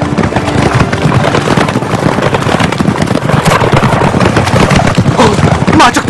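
A troop of horses galloping hard, a dense, continuous drumming of many hooves. Near the end a horse's whinny rises in pitch.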